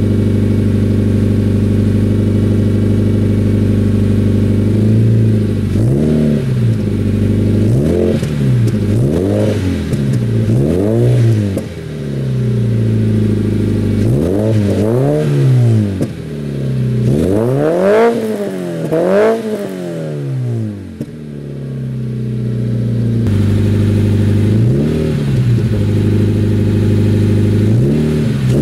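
2014 Scion FR-S's 2.0-litre flat-four boxer engine through a Borla straight-pipe header-back exhaust, idling and then free-revved in about ten quick blips in pairs and threes, each rising and falling back to idle, the highest near the middle, with one more blip near the end.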